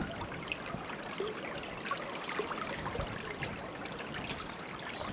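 Small shallow stream running over stones and gravel: a steady, even trickle of water.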